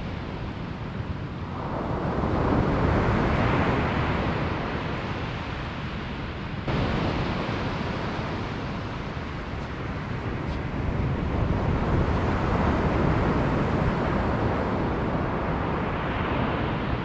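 Sea surf on a beach: waves breaking and washing in, the rush swelling about two seconds in and again around eleven seconds.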